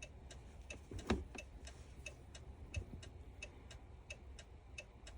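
2012 Chrysler 300's hazard-light flasher ticking steadily, about two to three ticks a second. A couple of faint thumps, about a second in and nearly three seconds in.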